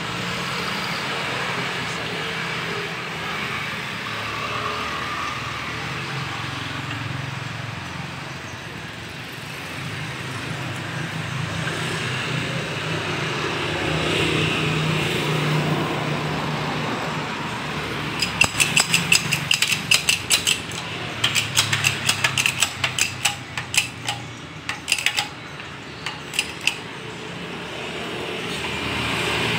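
Steady hum of passing traffic. About two-thirds of the way in, a run of rapid, sharp clicks and taps lasts several seconds in uneven clusters before dying away.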